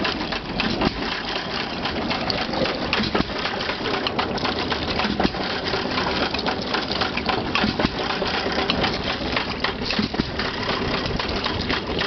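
Brownwall air-cooled stationary engine running steadily and driving a Blake three-cylinder piston water pump: a continuous mechanical clatter with rapid, close-spaced clicking.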